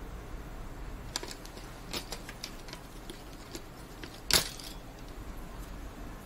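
Small clicks and rattles of hardware being handled as a CPU is taken out of a bare test motherboard's socket, with one sharp, much louder snap about four seconds in.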